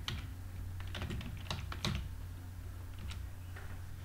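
Typing on a computer keyboard: a handful of irregularly spaced key clicks over a low steady hum.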